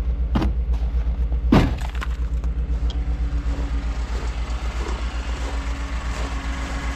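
Chevrolet Silverado pickup's engine idling just after a reluctant cold start in bitter cold: a steady, rapid low pulsing. A sharp knock sounds about one and a half seconds in, with smaller clicks around it.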